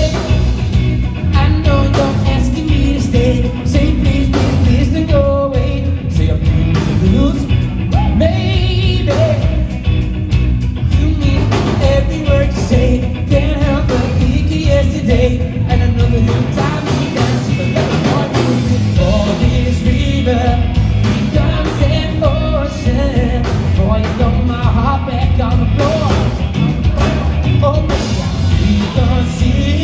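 Live covers band playing a song: a lead singer over amplified bass, guitar and drums, loud and steady throughout.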